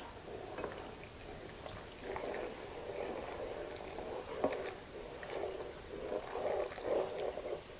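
Coca-Cola glugging from a glass bottle into a skillet of tomato sauce while a wooden spoon stirs it in, faint and irregular, starting about two seconds in, with a few light knocks of the spoon against the pan near the middle.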